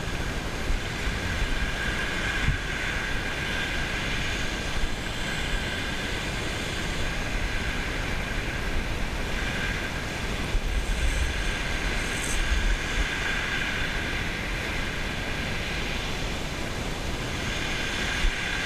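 A Penn Mag multiplier fishing reel being wound in steadily, its gears giving a continuous whirr, over the wash of small waves on shingle and a low rumble on the microphone.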